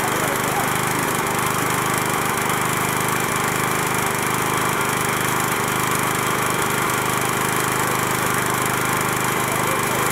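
A small engine running steadily, an even mechanical drone with no break.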